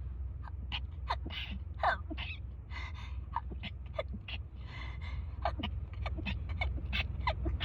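A person sneezing over and over in rapid succession, short sharp sneezes each falling in pitch, with breaths drawn in sharply between them. It is a sneezing fit brought on by a head cold.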